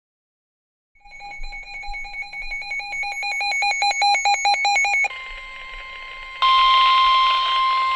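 Weather-alert radio alarm: a rapidly pulsing electronic beep for about four seconds, then the steady NOAA Weather Radio warning tone of about 1 kHz, which gets louder and harsher about a second and a half after it starts. It marks the start of a severe thunderstorm warning broadcast.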